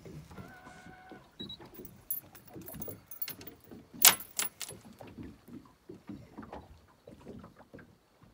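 Handling noise on a fiberglass boat deck while a caught bass is handled: irregular clicks, knocks and light metallic jingling, with one sharp knock about four seconds in. A short electronic beep sounds about half a second in.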